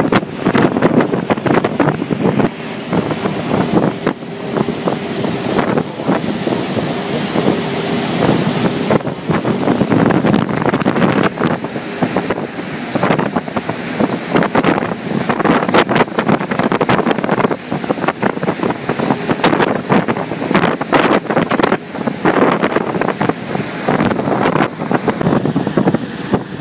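Wind buffeting the microphone in gusts over the steady rushing of a fast catamaran ferry's churning wake.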